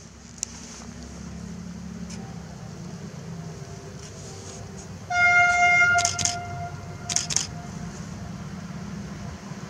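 Narrow-gauge Lyd1 diesel locomotive approaching, its engine rumble growing louder. About five seconds in it sounds its horn in one single-tone blast of about a second, followed by two short hissing bursts.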